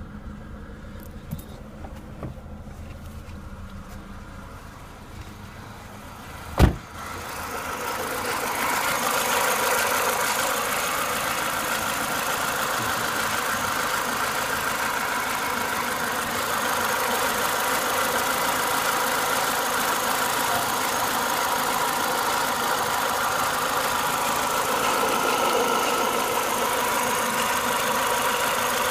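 Renault Clio 182's four-cylinder petrol engine idling warm, with a knocking noise that worries the owner. A single sharp clack comes about a quarter of the way in; after it the engine sounds much louder and brighter and runs steadily.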